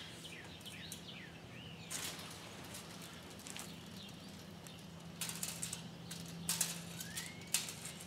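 Birds chirping: a run of short falling chirps near the start and one rising call near the end, over a steady low hum. Scattered scuffs and clicks come and go.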